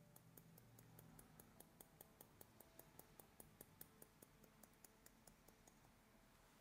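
Hair-cutting shears snipping continuously through a held section of long hair, faint, quick regular snips about five a second that fade out about five seconds in.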